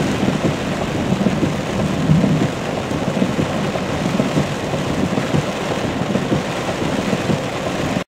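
Steady rain beating on a moving car, heard from inside the cabin, with road and wind noise under it.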